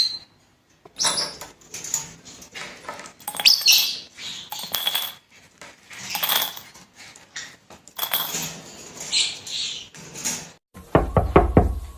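Pet parrot squawking in uneven, harsh bursts with scuffling noises between them. Near the end the sound changes abruptly to a quick run of sharp, pitched strokes.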